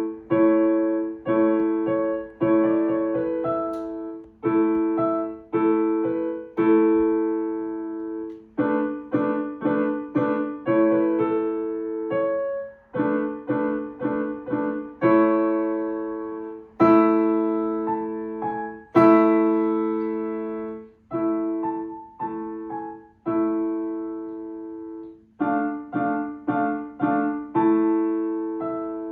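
Solo acoustic piano playing a piece made of runs of short, detached chords broken up by longer held chords that ring and fade.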